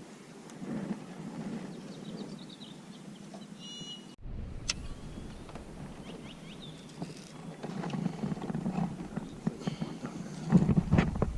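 Outdoor ambience on a lake: a low, uneven rumble with small birds chirping now and then. About four seconds in the sound changes abruptly and a deeper rumble comes in. A few sharp knocks come near the end.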